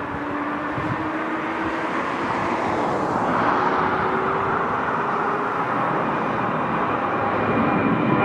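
Boeing 737's twin jet engines at take-off power as it climbs out overhead: a steady jet roar that swells about three seconds in as the aircraft passes over, then holds.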